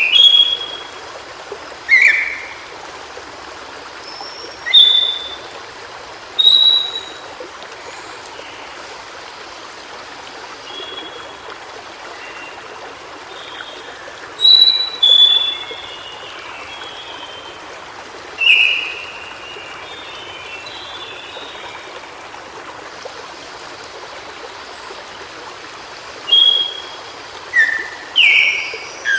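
White-browed shortwing singing short, quick warbled phrases every few seconds, about eight in all, over the steady rush of a stream. The bird phrases are the loudest sounds.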